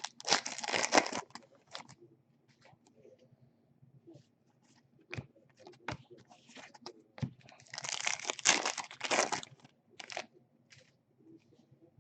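Foil trading-card pack wrappers crinkling and tearing in two loud bursts, one at the start and one about eight seconds in, with scattered light clicks and taps between.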